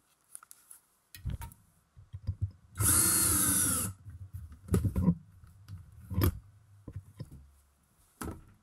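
Cordless drill run in one burst of about a second, its motor pitch rising and then falling, spinning lengths of wire to twist them for a lure's line tie and hook hanger. Short knocks of handling before and after.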